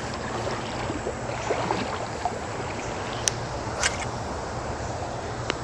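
Steady rush of flowing river water, with a few light clicks partway through and near the end.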